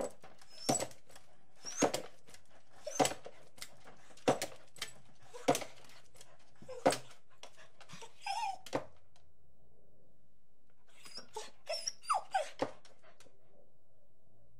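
Dog barking: six single sharp barks a little over a second apart, a quick pair of barks, then after a pause of about two seconds a rapid run of several barks.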